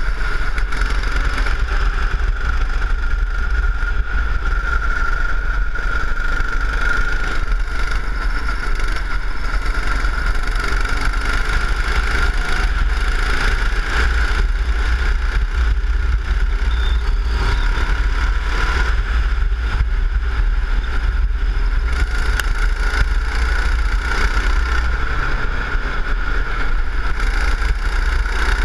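Go-kart engine running under load as the kart is driven at speed, with a steady pitch that rises and dips only slightly. Wind rumbles on the onboard camera's microphone.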